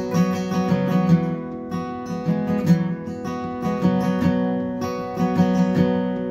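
Gibson acoustic guitar with a capo, played alone in an instrumental break: chords strummed in a steady rhythm.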